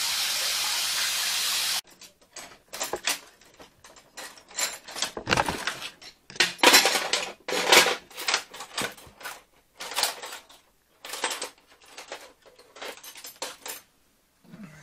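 A steady hiss of water spraying from a pinhole leak in a pressurised cold-water pipe cuts off abruptly about two seconds in. It is followed by a long run of irregular clicks, knocks and rustles.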